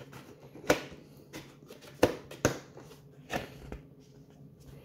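A kitchen knife cutting open a cardboard CPU retail box, and the lid being lifted: a handful of short, sharp scraping strokes, about four of them clear, over a faint steady hum.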